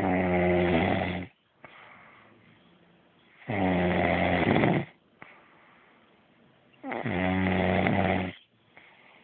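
A person snoring: three long, loud snores about three and a half seconds apart, with soft breathing between them.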